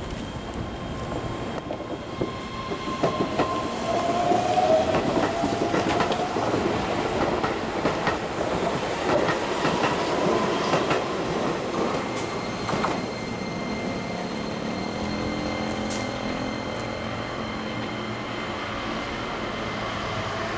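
Keihan 10000 series electric train pulling out of the station. Its traction motors whine, rising in pitch as it gathers speed, and its wheels click over the rail joints and points.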